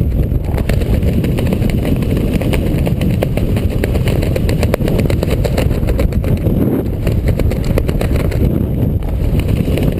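Wind buffeting an action camera's microphone during a tandem parachute descent under an open canopy: a loud, steady rumble.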